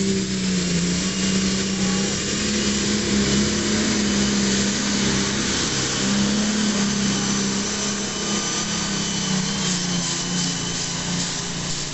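Diesel pulling tractor running flat out under load as it drags a weight-transfer sled, a steady heavy engine drone with a thin high whine over it. It fades slightly toward the end as the tractor moves away.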